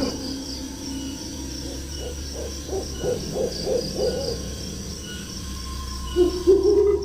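An owl hooting: a run of short, evenly spaced hoots from about two seconds in, then louder hoots near the end, over faint chirping of night insects.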